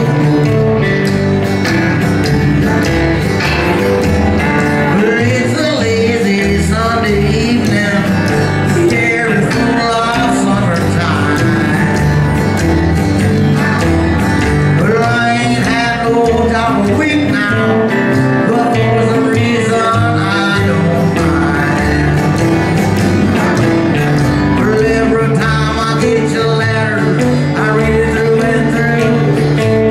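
Live band playing a country-style number, with guitar over a steady bass line.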